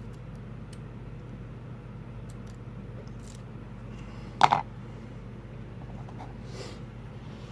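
Faint small clicks of lock picks working the pins of a padlock over a steady low hum, with one sharp double knock about four and a half seconds in.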